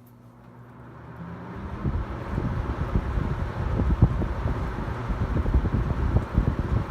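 Hunter model 11027 20-inch two-speed box fan coming up to speed on high: a steady motor hum gives way over the first two seconds to a growing rush of air. The airflow then blows steadily across the microphone as gusty wind noise.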